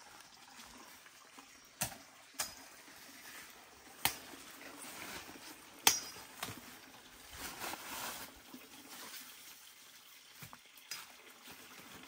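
Machete chopping through undergrowth: a handful of sharp strikes a second or two apart, the loudest about six seconds in, with a faint steady trickle of water underneath.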